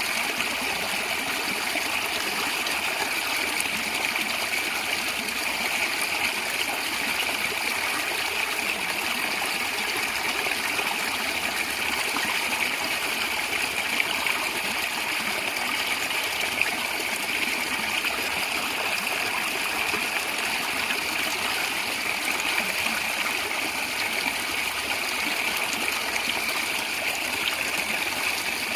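Natural stream water flowing and gurgling steadily, an unbroken rush with most of its energy high in pitch.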